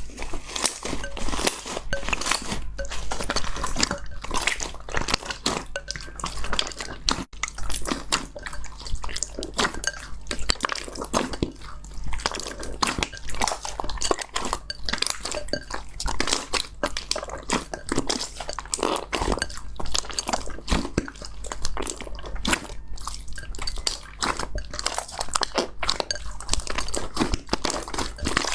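Slime being squeezed, stretched and poked by hand: a dense, continuous run of crackles and pops.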